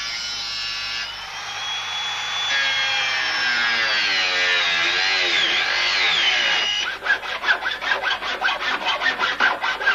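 Angle grinder with a cutting disc slicing through rusted car-body sheet steel; its whine sags and recovers as the disc bites. About seven seconds in, it gives way to quick rasping hacksaw strokes on the metal, about five a second.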